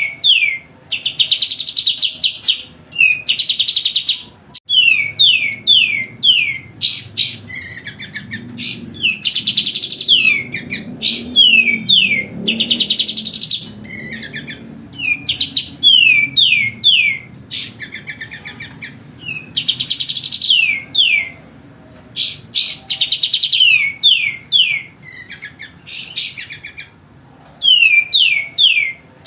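Kapas tembak, a bulbul, singing loud and nonstop: repeated phrases of quick falling whistled notes mixed with dense chattering bursts, one phrase every second or two, with short pauses between them.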